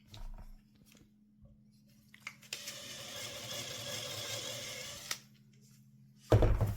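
A power drill runs steadily for about two and a half seconds, starting and stopping with a click, typical of drilling the pilot hole for a circle-jig pin deeper. A loud low thump comes near the end.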